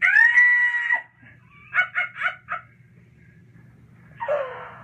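A shrill, held cry lasting about a second, then four quick short calls, then a brief rasping call that falls in pitch near the end.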